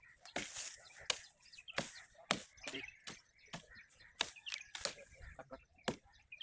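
Repeated chopping strikes, a blade hitting wood about once or twice a second at an uneven pace, over a steady high hiss.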